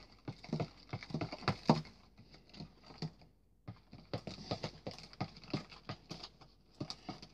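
A spoon stirring runny homemade slime in a clear plastic tub: quick, irregular clicks and squelches, stopping briefly about halfway through.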